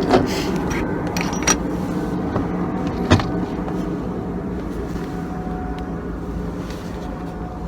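A motor vehicle's engine running steadily, slowly fading, with one sharp click about three seconds in.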